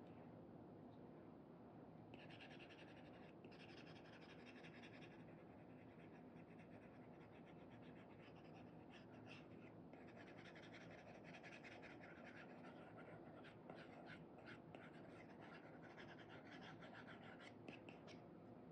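Faint scratch of an Apple Pencil 2's Elecom nib dragging across a paper-like screen protector on an iPad as it paints, in strokes lasting a second or more, turning into quick short dabs near the end.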